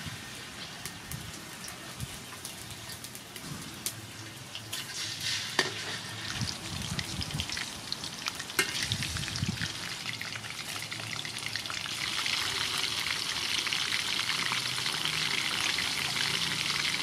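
Pieces of sea fish frying in hot soybean oil in a metal wok: a steady sizzle that grows louder through the second half, with a few sharp clicks of the metal spatula against the wok.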